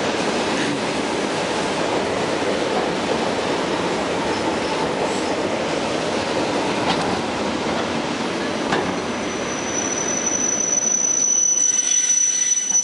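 ED4M electric multiple unit rolling along the platform as it arrives, with a steady rumble of wheels on rail. About nine seconds in a high, steady squeal sets in as the train slows, and it grows louder near the end.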